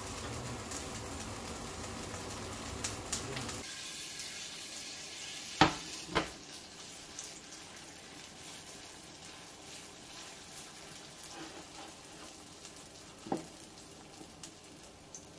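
Mung bean pancake batter sizzling as it fries in a pan of oil. A few sharp knocks of a metal spoon cut through, two about six seconds in and one near the end.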